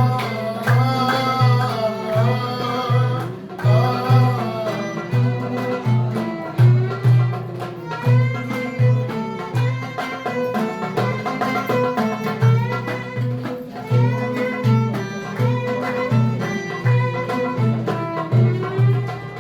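Instrumental interlude of an Iraqi song: a melody on bowed strings such as violin over a steady low beat of about two pulses a second.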